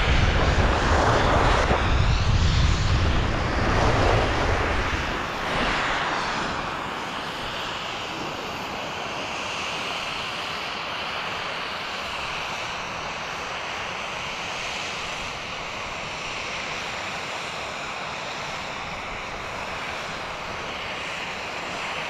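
Wind buffeting the camera's microphone while skiing downhill, a heavy rumble for the first five seconds or so, then easing into a steady hiss of skis sliding over groomed snow.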